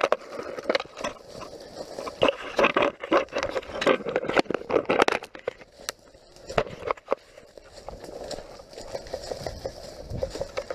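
Footsteps crunching and scraping through dry leaf litter and brush, with irregular crackles and rustles.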